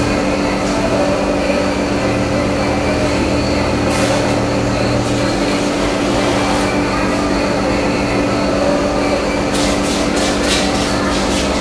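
Steady mechanical rumble with a constant low hum, like a running vehicle heard from on board, broken by short bursts of rattling about four seconds in and again near the end.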